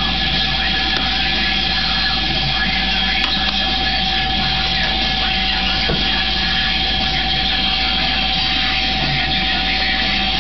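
A steady mechanical hum with a constant high whine over a low drone, not changing in level or pitch.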